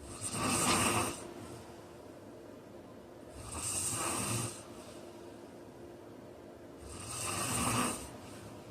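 A large man snoring loudly in his sleep: three snores, each about a second long, coming about every three and a half seconds in a steady rhythm.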